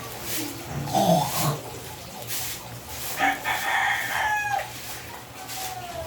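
A rooster crowing once, a held call that falls in pitch at the end, after a shorter, louder sound about a second in.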